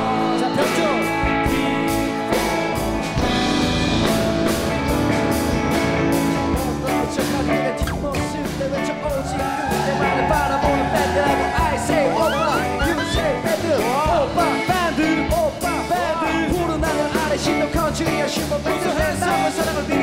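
A rock band playing: drums, bass and electric guitar, with a singing voice over the music in the second half.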